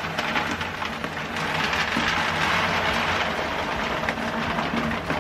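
Dry kibble poured from a plastic bag into a hard plastic storage bin: a steady, dense rattle of pieces, loudest in the middle.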